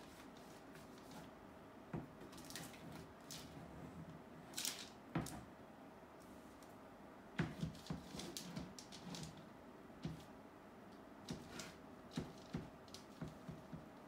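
Art materials being handled: irregular light clicks, taps and rustles as markers, pens and tape rolls are picked up, used and set down, over a faint steady hum.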